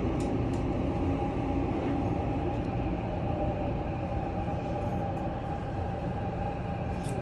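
Subway train running, heard from inside the car: a steady low rumble with a steady tone above it.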